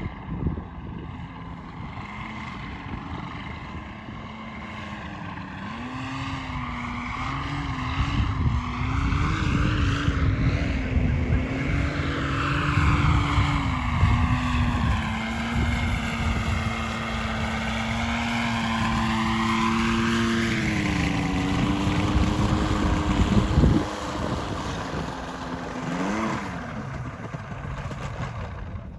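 Two-seat paramotor's engine and propeller running under power; the engine note climbs about six seconds in, wavers and holds, then falls in pitch near the end.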